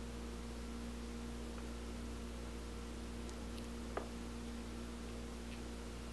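Steady electrical hum with faint hiss, and a single sharp click about four seconds in.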